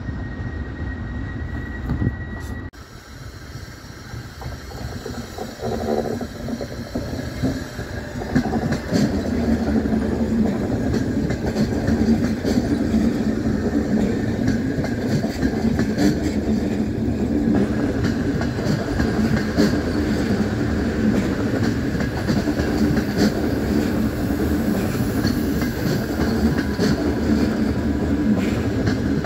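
Frecciabianca electric passenger train rolling slowly past, a steady rumble of wheels on rails with scattered clicks over the rail joints; it grows louder about eight seconds in and then holds. Before that, a thin high wheel squeal cuts off about three seconds in.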